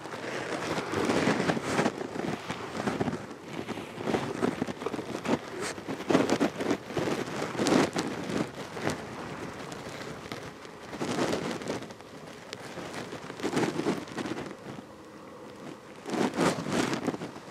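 Fabric windsock snow goose decoys flapping in gusty wind, a dense run of quick snaps and rustling that surges louder in irregular gusts.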